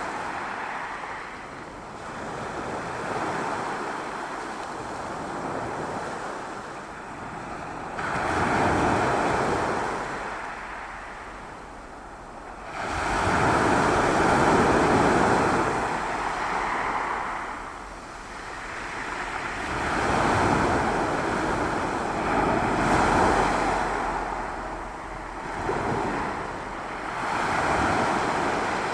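Sea surf from a slight swell, waves breaking and washing in, the rush swelling and fading every four to six seconds.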